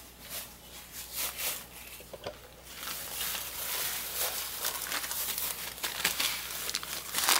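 Plastic packaging crinkling and rustling as it is handled, in scattered crackles at first and denser and louder from about three seconds in.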